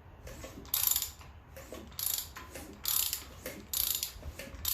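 Hand ratchet wrench being worked in repeated strokes, a short burst of clicking about once a second.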